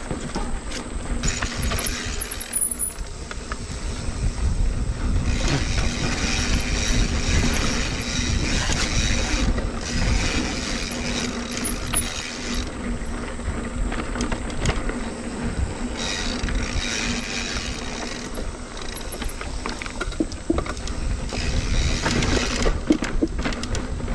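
Mountain bike riding along a dirt trail: tyre and frame rattle with scattered clicks over steady wind rumble on the camera microphone, and a higher hiss that comes and goes every few seconds.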